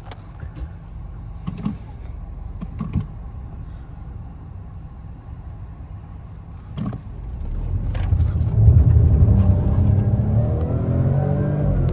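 Citroën C4 X's stock 1.2-litre turbocharged three-cylinder petrol engine, first running low and steady with a few short knocks, then accelerating from about seven seconds in, getting louder with its pitch rising.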